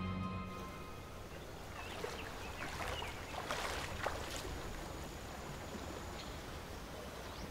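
Outdoor ambience: a steady background hiss with a few brief chirps and light clicks. Background music fades out in the first half-second.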